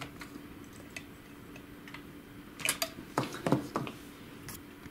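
Pliers working the metal clamps on an HP LaserJet 6L's sheet-steel frame: a few faint clicks, then a cluster of sharp metal clicks and knocks about three seconds in.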